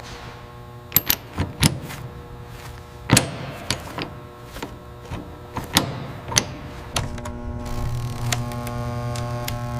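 Workshop tool noise: a scatter of sharp metallic clicks and knocks, about nine in the first seven seconds. After that a steady electric machine hum sets in.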